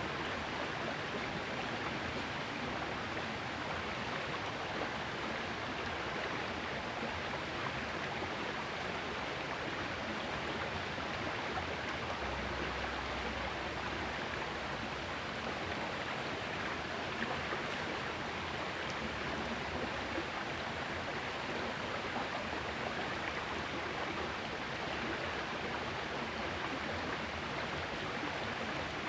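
Steady rushing of a small river's running water.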